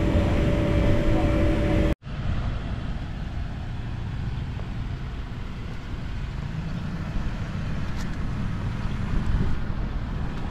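A steady hum that cuts off abruptly about two seconds in, followed by a Toyota Tacoma's engine running at low revs as the truck crawls over a rock ledge, the engine rising a little midway.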